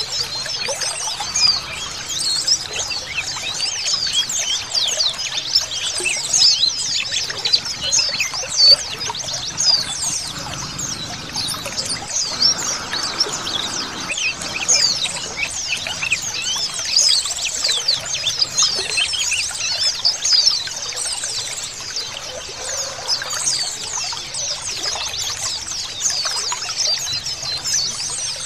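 Many white-eyes (pleci) chirping together in a dense, unbroken chorus of short high calls, over a steady sound of trickling water.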